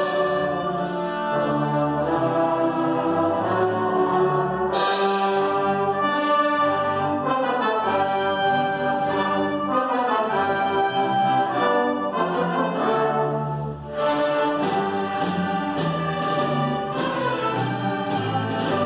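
Full orchestra of strings, woodwinds and brass playing a loud passage, with brass chords held over the strings and rising and falling runs. About two-thirds of the way through the music drops for a moment, then comes back in full.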